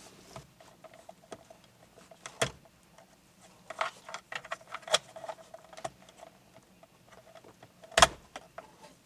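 Plastic clicks and rattles of wiring harness connectors being unlatched and pulled from a pickup's overhead console. There is a sharp click about two and a half seconds in, a flurry of clicks in the middle, and the loudest click near the end.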